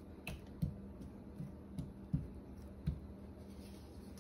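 Wooden spoon knocking lightly against a nonstick pan while stirring sliced carrots and chayote in melted butter: about six soft, short taps in the first three seconds, over a faint steady hum.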